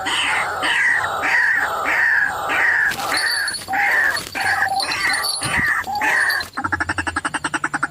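White-breasted waterhen calling: a run of harsh, loud 'kru-ak' calls, about one and a half a second. Near the end it switches to a fast, even rattle of croaks.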